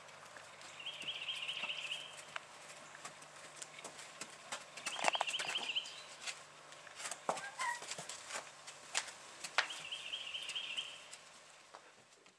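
A songbird singing the same quick warbling trill three times, about four seconds apart, with a short rising call in between. Scattered soft taps of horse hooves on dirt.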